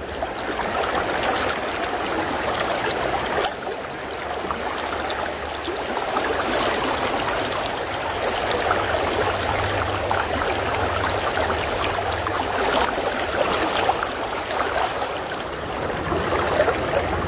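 Shallow creek riffle running steadily over rocks, a constant rushing and gurgling of water close to the microphone.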